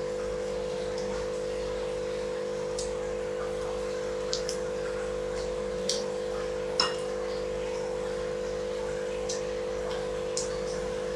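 Sparse light clinks and taps of a ceramic bowl and glass table top as boiled chicken is picked apart by hand, about seven in all, the loudest near seven seconds in with a brief ring. Under them runs a steady hum.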